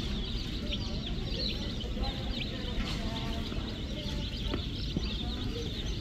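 A brood of baby chicks peeping nonstop, many short high peeps overlapping, over a low steady rumble.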